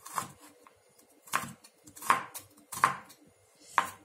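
Kitchen knife slicing fresh red chillies on a wooden cutting board: about five separate cuts, each a sharp knock of the blade against the board, at an uneven pace.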